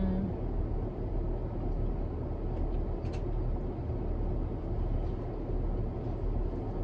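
Steady low hum of a car's interior, with a single faint click about three seconds in.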